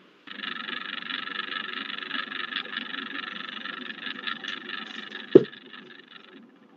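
Crackling, buzzing noise coming through the video-call audio, starting suddenly and cutting off shortly before the end, with one sharp thump about five seconds in.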